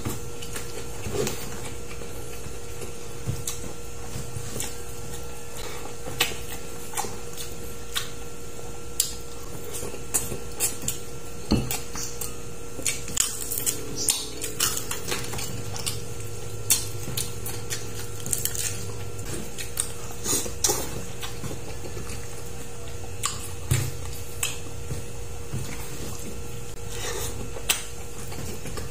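A person eating by hand, close to the microphone: irregular clicks and smacks from chewing, with fingers pressing and scooping rice on a banana leaf. A faint steady hum runs underneath.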